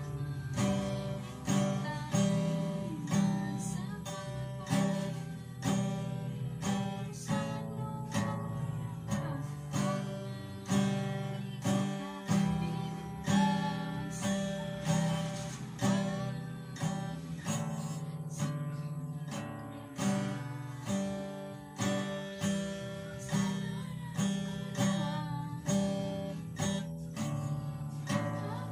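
Acoustic guitar strummed in a steady rhythm, with a strong strum about once a second and lighter strokes between, the chords changing as the song goes on.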